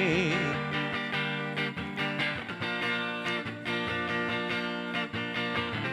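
Band music: a sung note with vibrato trails off in the first half second, then guitar strumming carries on without singing.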